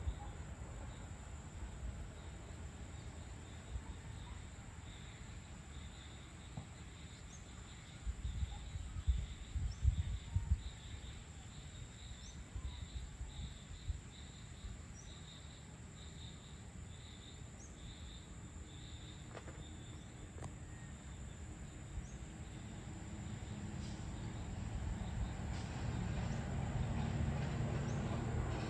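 Evening insect chorus: a steady high-pitched drone of crickets with a chirp repeating about once a second through the first half, and a few short bird chirps. Low rumbling bumps about eight to eleven seconds in, and a low rumble that builds toward the end.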